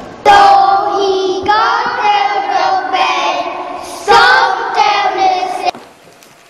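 Children's voices singing a song without accompaniment, stopping about a second before the end, after which only faint room noise remains.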